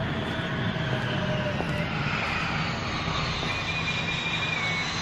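Airplane engine noise, a steady drone with faint high whining tones that drift slowly in pitch.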